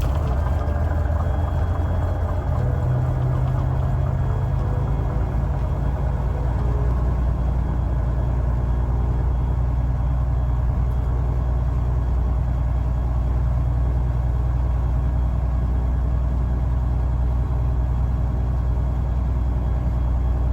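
Piper Lance's six-cylinder Lycoming piston engine and propeller starting up: the engine catches at the very start, then runs steadily at low power, settling about two and a half seconds in.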